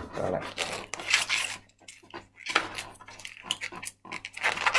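Latex modelling balloon squeaking and rubbing in the hands as a small white bubble is twisted off for an eye, in short irregular squeaks and rasps.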